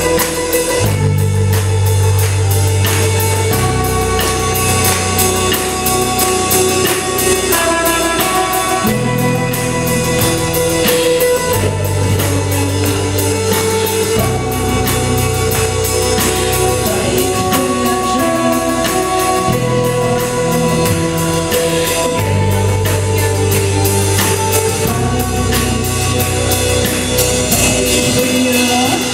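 Metal band playing live: distorted electric guitars, bass and drum kit, with a woman singing into a microphone.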